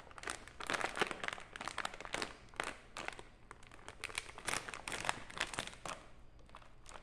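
A metallized plastic snack bag crinkling and crackling in irregular spurts as it is torn open by hand across the top.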